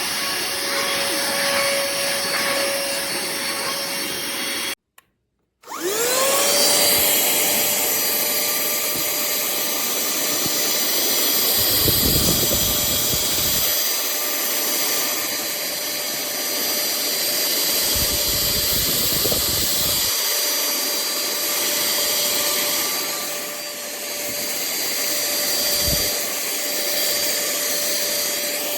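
Cordless handheld vacuum cleaner running with a steady whine. About five seconds in the sound cuts out for under a second, then the motor spins back up with a rising whine and runs on. A few low rumbling stretches come and go over it.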